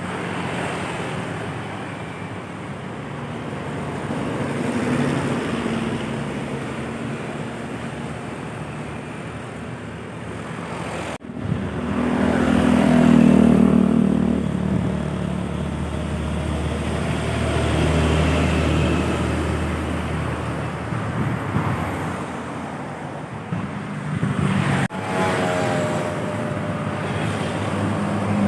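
Road traffic with heavy vehicles' engines running as they pass, in three stretches split by sudden cuts about eleven and twenty-five seconds in. The loudest pass comes just after the first cut.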